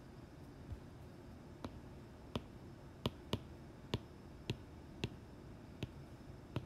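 Stylus tip tapping on an iPad's glass screen while handwriting, about a dozen sharp irregular clicks over a faint steady background hiss.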